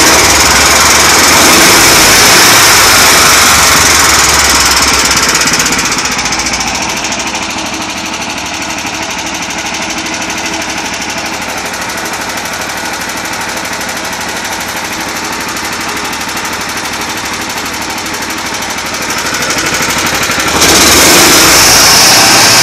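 Heavy engine-driven machinery running steadily at the sulfur transloading site, with a fast, even rattle and a strong hiss. It drops to a lower level for a long stretch in the middle and comes back loud near the end.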